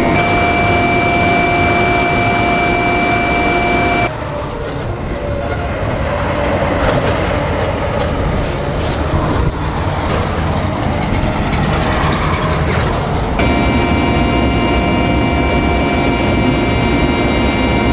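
Heavy military engine noise running steadily with several high whining tones over a low rumble. It changes abruptly about four seconds in, to a rougher, less whiny sound, and switches back again near thirteen seconds.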